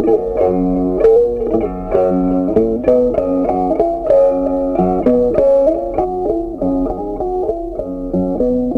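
Background music: a melody of plucked guitar notes over a bass line.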